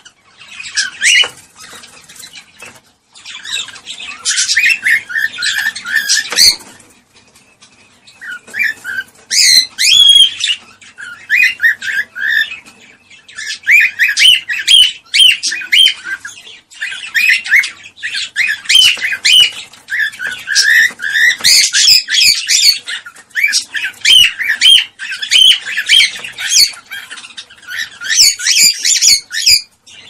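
Cockatiels chirping and warbling in quick, dense runs of calls, broken by short lulls about three seconds and seven seconds in: the chatter of a mating pair.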